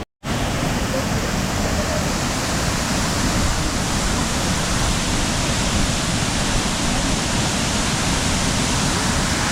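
Steady rushing roar of a large waterfall, even and unbroken, after a brief dropout right at the start.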